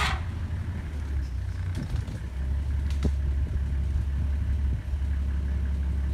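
Safari vehicle's engine idling with a steady low hum, with a faint click about three seconds in.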